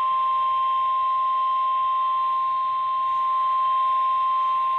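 Emergency Alert System alert tone: a single steady, high-pitched electronic tone that holds at one pitch and level. It is the attention signal that comes before a National Weather Service severe thunderstorm warning.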